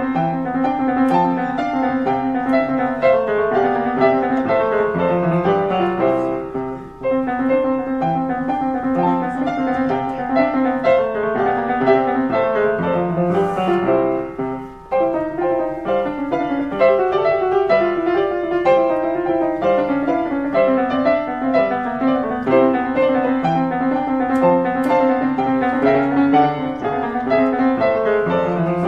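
A German upright piano built by Ritmüller in 1872 is being played: a continuous run of many notes, with two short breaks between phrases about 7 and 15 seconds in.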